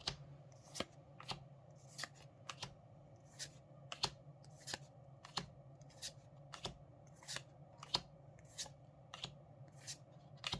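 Trading cards being flicked through one at a time, a short crisp snap roughly twice a second as each card is slid off the stack, over a faint steady low hum.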